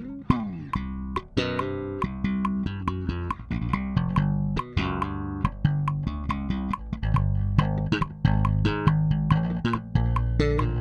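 Mike Lull M5V five-string electric bass played solo and recorded direct: a busy line of plucked notes, each with a sharp attack, with a note sliding down near the start.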